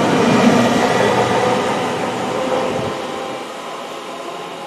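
Passenger multiple-unit train passing close along the platform: a loud rushing rumble with a steady whine from its traction equipment. About three seconds in it drops off sharply and dies away to a fainter rumble as the train moves off.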